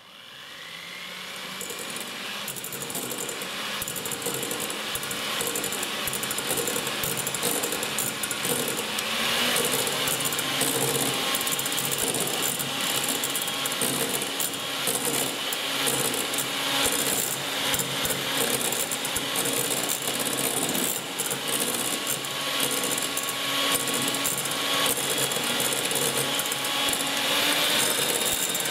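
The electric motor of a 1980s Gorenje MGA M202 hand mixer switching on and winding up to speed over the first couple of seconds, then running steadily as its twin beaters whip cream in a glass bowl. A steady patter of clicks comes from the beaters in the glass bowl throughout.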